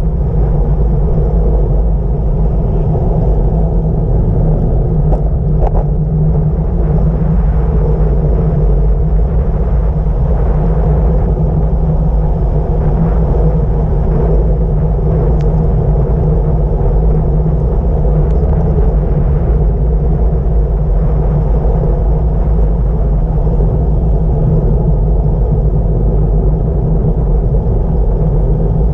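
Steady, loud rumble of wind buffeting a bike-mounted camera's microphone at speed on a bicycle descent, with a few faint ticks.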